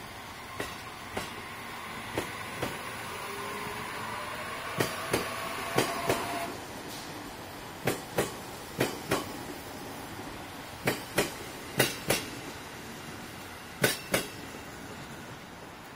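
JR E257-500 series electric train pulling out, its wheels clicking over rail joints in pairs as each bogie crosses, the pairs coming closer together as it gathers speed. A faint rising whine comes from the train through the first half.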